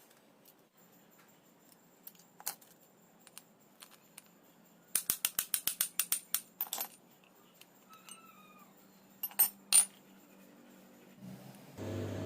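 Metal parts and tools clicking and clinking as the air compressor's connecting rod is worked on: a few scattered clicks, then a quick run of about ten sharp clicks, then two more.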